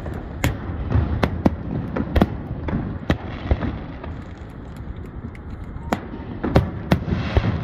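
Aerial fireworks shells bursting in quick succession: a string of sharp bangs over a continuous low rumble, thickest in the first three seconds and again near the end.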